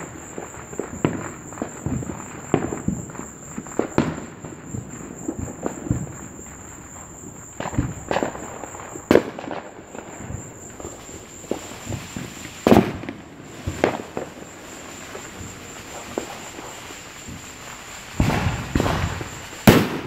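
Fireworks going off: irregular pops and bangs, a few louder booms, and a denser burst of bangs near the end.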